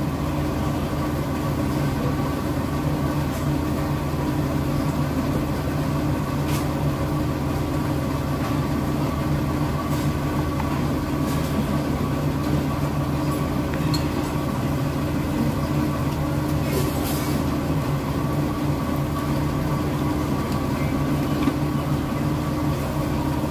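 Steady low mechanical hum holding a few constant tones, with a few faint light clicks scattered through it.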